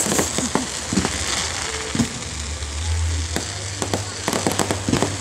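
Fireworks crackling and popping: a scatter of sharp cracks that bunch into a dense crackle about four seconds in.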